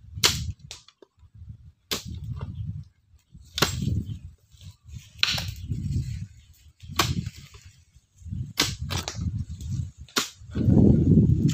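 Digging a post hole by hand: a digging tool strikes into the ground about every second and a half, seven sharp hits, each with a short dull thud. A steady low rumble comes in near the end.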